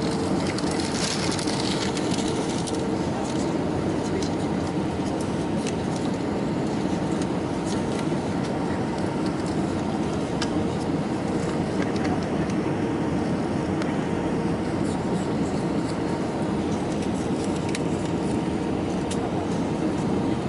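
Steady cabin noise of an Airbus A319 on final approach: the rumble of its CFM56 engines and the rush of airflow over the extended flaps, heard from inside the cabin, even in level, with a faint steady hum.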